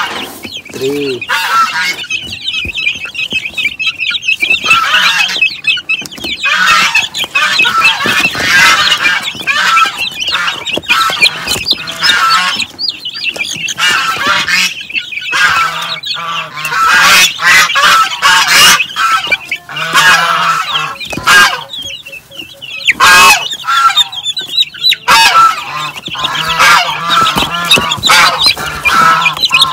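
A boxful of young native × Rhode Island Red cross chicks peeping continuously, many shrill cheeps overlapping, with the knocks and rustle of the cardboard box as they are lifted out by hand.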